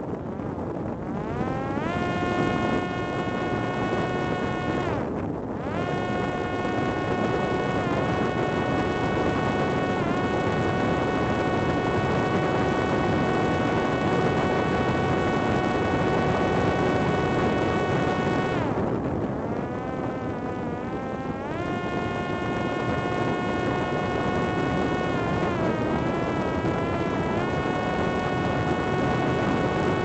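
Parrot Disco fixed-wing drone's electric motor and propeller whining at a steady high pitch on high power, over heavy wind noise on the microphone. The whine climbs in pitch over the first two seconds and drops out briefly about five seconds in. It sags and wavers around twenty seconds in and wobbles again a few seconds later.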